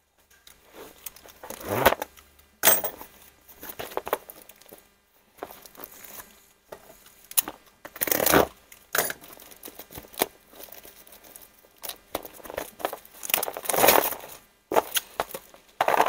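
Plastic bag of a new valve cover gasket being crinkled and torn open by hand, in irregular rustles with louder crackles about two, eight and fourteen seconds in.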